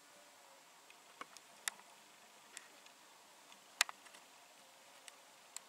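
Scattered short, sharp clicks at irregular intervals over a faint steady hiss, the loudest a little before four seconds in.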